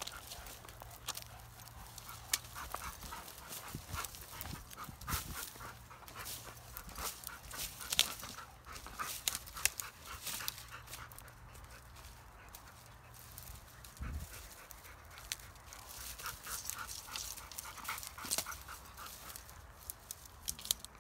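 Kangal (Anatolian Shepherd) dogs panting in quick rhythmic runs, with scattered short clicks and scuffs as they move about on stony ground.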